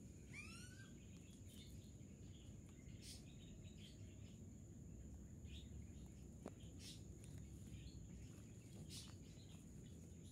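Near silence of faint outdoor ambience: a small bird gives a quick run of rising chirps about half a second in, over a thin steady high-pitched tone and a few faint ticks.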